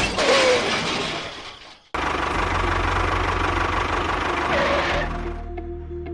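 Small engine running steadily with a low hum, broken off by a sharp cut about two seconds in, then running on and fading near the end.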